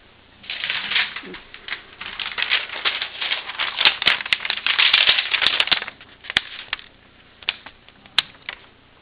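A rapid, irregular run of clicks and rattling for about five seconds, then a handful of separate sharp clicks.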